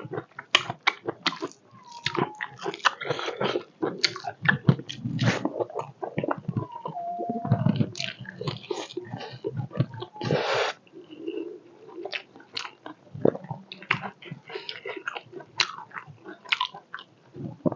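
Close-up eating sounds of someone chewing pork leg: wet smacking and crunchy clicks of chewing, biting and tearing at the meat, coming irregularly several times a second.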